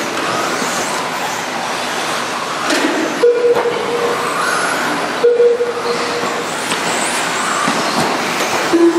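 Electric RC racing trucks running on an indoor dirt track: a steady mix of motor whine and tyre noise, with short whines rising and falling as the trucks speed up and brake. Two short steady tones sound, about three seconds and five seconds in.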